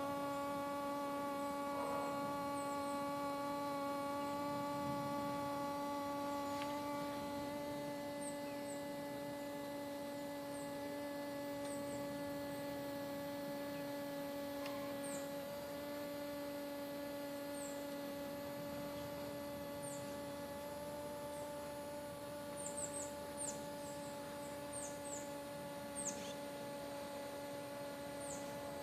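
Hoverfly hovering in place, its wings giving a steady, even-pitched buzz. Faint short high chirps come in now and then, more often near the end.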